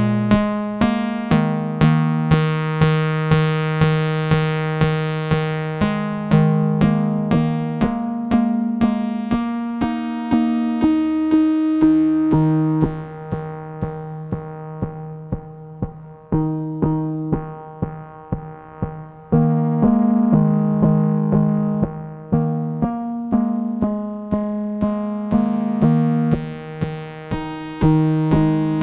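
Eurorack modular synthesizer patch: Winterbloom Castor & Pollux oscillators plucked through a Steady State Gate low pass gate, with Xaoc Devices Sarajewo BBD delay, playing a steady pulse of short plucked notes over a shifting bass line. Near the middle the tone turns dark and quieter as the high end falls away, then it opens bright again.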